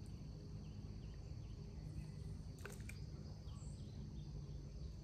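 Pondside outdoor ambience: a steady high insect drone over a low background rumble, with a few short bird chirps and one sharp click a little past halfway.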